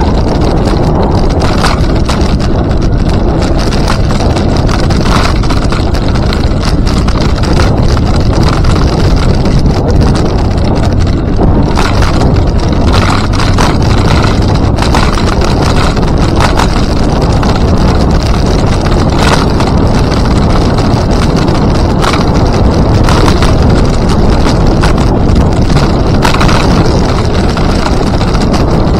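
Wind buffeting the microphone on a moving rider's camera: a loud, steady low rumble with scattered short knocks throughout.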